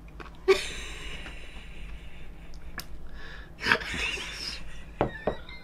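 Stifled laughter: breathy snorts and exhalations, with a louder burst of laughing about four seconds in and a few short clicks near the end.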